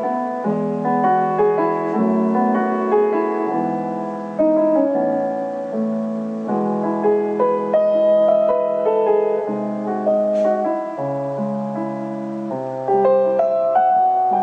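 Background piano music: a melody of held notes over sustained lower chords.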